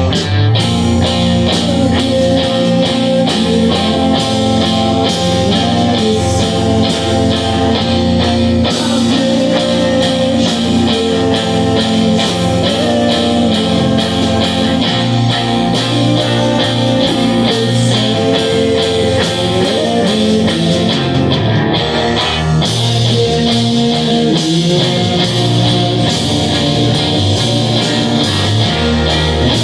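Live rock band playing: guitars over a steady drum-kit beat, loud and continuous.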